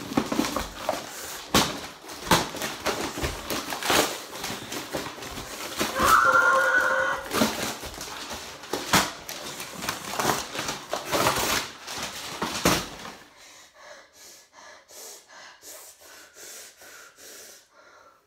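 Crumpled paper and foil wrapping being torn off and crinkled in fast, dense rustles and rips, with a brief strained wordless cry from a boy about six seconds in. After about 13 seconds the tearing stops and only soft, faint rustles remain.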